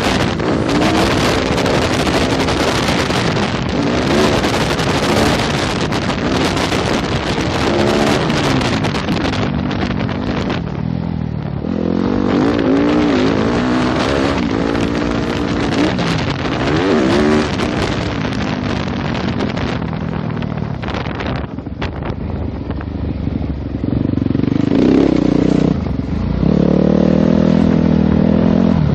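2015 Yamaha YZ250F's four-stroke single-cylinder engine revving up and falling back again and again while riding a motocross track. A rushing hiss of wind over the microphone fills the first third. Near the end the engine holds high revs.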